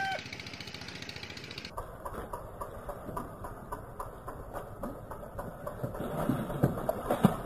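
Water splashing as a big fish thrashes in a landing net, loudest near the end, over a small engine running with a steady, regular ticking about three times a second.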